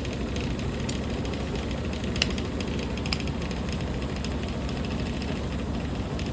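Washing machine on its spin cycle, the drum spinning fast with a steady low rumble, and a few sharp clicks or taps.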